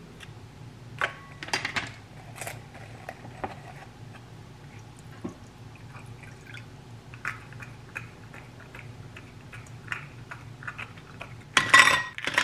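Water poured from a measuring jug over ice in a stemmed glass, trickling with small clinks of ice against the glass. Near the end ice cubes tipped from a scoop clatter loudly into the glass.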